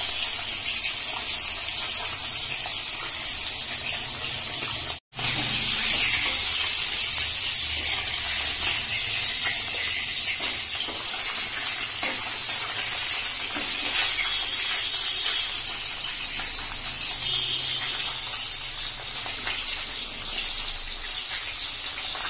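Bacha fish frying in hot mustard oil in a kadai: a steady sizzle with fine crackling pops, broken by a brief gap about five seconds in.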